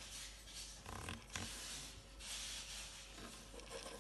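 Faint handling noise: light rubbing with a couple of soft knocks about a second in.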